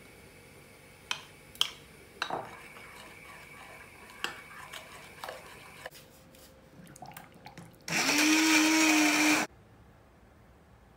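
A few light clinks of a metal spoon against the dishes, then about eight seconds in a small electric kitchen motor runs at a steady pitch for about a second and a half and stops sharply.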